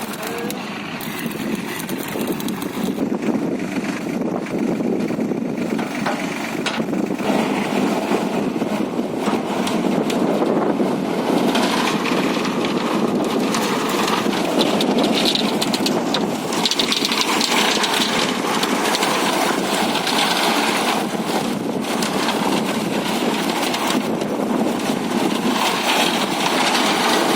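Tractor engine running steadily with a dense mechanical noise, growing louder about eight seconds in and again around eleven seconds.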